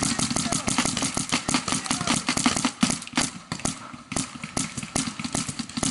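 Planet Eclipse Gtek paintball marker firing a rapid string of shots, about ten a second, easing briefly about four seconds in before firing on.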